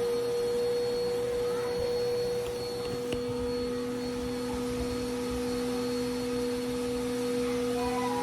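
Dirt Devil Vigor Cyclonic Pet vacuum cleaner running with a steady whine over a rushing air noise. A second, lower steady tone joins about three seconds in.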